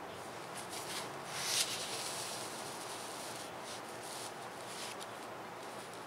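Soft rubbing and brushing on thin onion-skin paper as the writing hand and sheet shift between characters, a few dry swishes with the loudest about one and a half seconds in, over a steady hiss.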